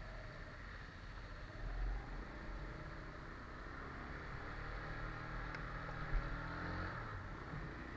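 Benelli TNT 15 motorcycle's small single-cylinder engine running as it rides along a wet street, under a steady hiss of tyres on wet pavement and wind. There is a low bump about two seconds in and a short sharp knock about six seconds in.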